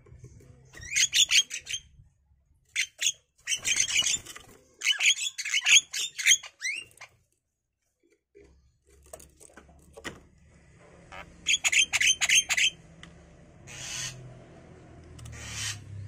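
Javan mynas calling in three spells of rapid, high-pitched chattering calls. Near the end come two brief rushing sounds.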